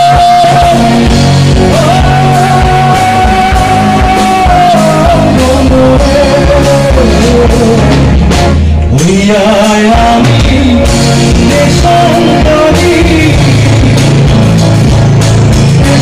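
Loud live rock band playing through a PA: a male singer holding long notes over keyboard, electric guitar, bass and drums.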